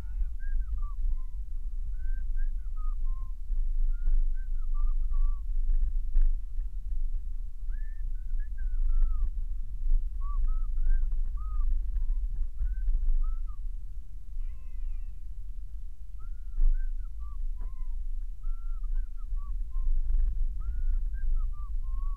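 Low steady rumble of a car driving, as picked up by a dashboard camera inside the cabin. Over it, a long run of short high chirping notes that rise and fall, repeating about once a second.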